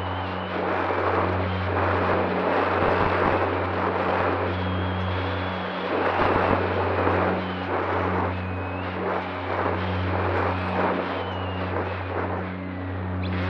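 Bixler 3 RC plane in flight, heard from its onboard camera: the Turnigy Aerodrive SK3 brushless outrunner motor and propeller running with a steady low hum, under a loud rush of air that swells and fades.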